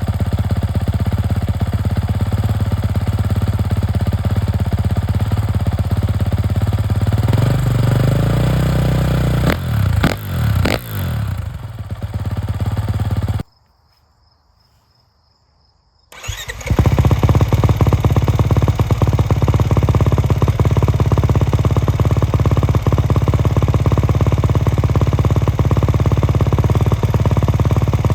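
Kawasaki KX450 dirt bike's single-cylinder four-stroke engine idling through its exhaust, with a few quick throttle blips in the middle. The sound breaks off for about two seconds, then the engine runs again, steady and louder.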